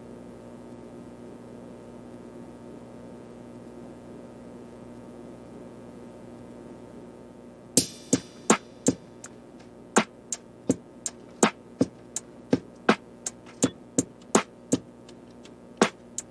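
Background music in a lull: a faint steady hum for about eight seconds, then a drum-machine beat of sharp clicks starts and repeats about two to three times a second.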